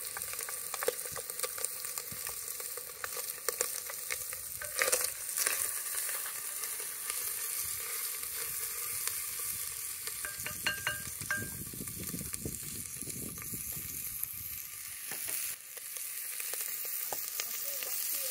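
Beef sizzling as it browns in a cast-iron pot, with a steady frying hiss and scattered clicks and scrapes of stirring.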